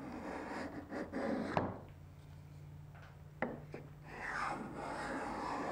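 Cabinet scraper pushed along a maple board, a rasping scrape as the blade lifts shavings. Two stretches of scraping with a quieter gap between, and sharp knocks about a second and a half in and again about three and a half seconds in.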